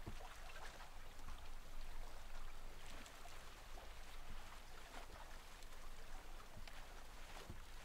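Quiet room tone: a faint steady hiss and low hum, with a few soft scattered ticks and rustles.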